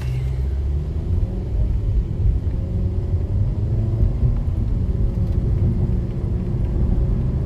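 Low, steady rumble of a car's engine and road noise heard from inside the cabin while driving, its pitch shifting slightly as the engine speed changes.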